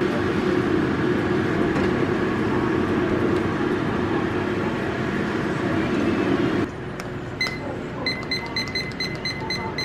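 A machine running with a steady hum that cuts off suddenly about two-thirds of the way through, followed by a quick string of short, high electronic beeps.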